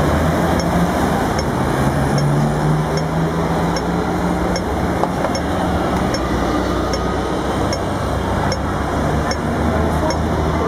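Dense city street traffic passing close, with a double-decker bus's engine running loudly nearby in the first half. A regular high tick from a pedestrian-crossing signal repeats a little faster than once a second throughout.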